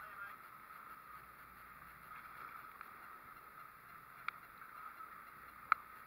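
Steady wash of wind and water around a small boat at sea. About four seconds in there is a sharp knock, and a louder one comes near the end as the catch is swung aboard onto the deck.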